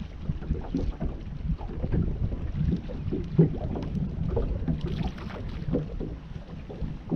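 Wind rumbling on the microphone aboard a small fishing boat, with irregular low knocks and slaps of water against the hull.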